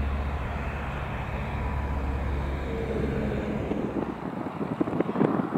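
Propeller aircraft engine droning steadily as it flies past, giving way about four seconds in to gusty wind buffeting on the microphone.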